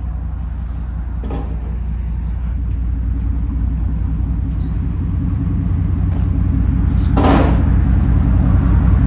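2001 Dodge Ram 1500's 5.9-litre V8 idling through straight-piped dual exhaust with no mufflers: a steady low rumble that grows louder. A short sharp noise about seven seconds in.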